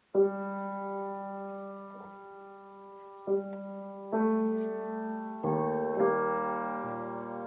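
Piano played slowly and freely: sustained chords struck about five times, each ringing on and fading before the next, with a low bass note joining near the end.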